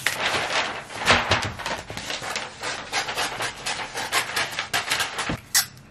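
Brown kraft wrapping paper rustling and crinkling as it is unrolled and handled, with a soft knock about a second in and another near the end.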